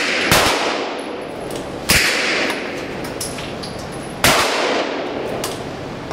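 Single gunshots fired one at a time, each sharp crack followed by a ringing echo off the walls of an indoor shooting range; three loud shots spaced about two seconds apart.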